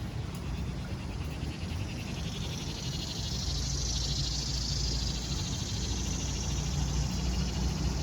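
Small frogs calling: a rapid, high-pitched pulsing trill that builds about two seconds in, swells midway and fades near the end, over a low steady rumble.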